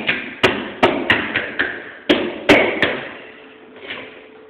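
A quick, irregular run of sharp knocks and thuds, about nine strikes in three seconds, then stopping.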